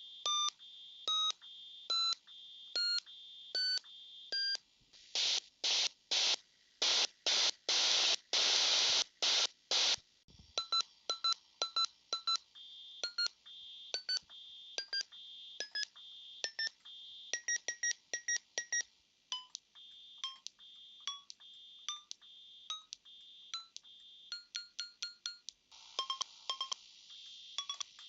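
YM2203 sound chip's SSG channel sounding short square-wave beeps that step up in pitch, then a run of short hiss-like noise bursts from its noise generator about five to ten seconds in, then more short beeps at changing pitches. A faint steady high whine sits between the beeps.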